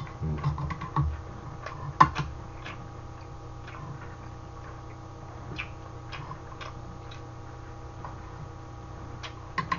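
Metal spoon clinking and scraping against a stainless-steel pot and bowl as stew is ladled out, with a sharper clink about two seconds in and scattered light ticks after.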